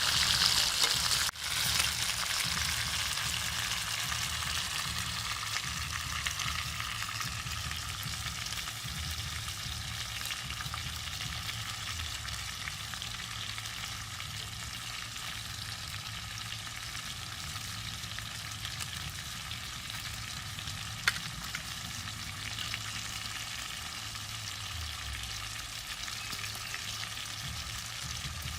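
Pork ribs deep-frying in hot oil: a steady sizzle that is loudest in the first few seconds and settles a little over the next several. One sharp click about twenty seconds in.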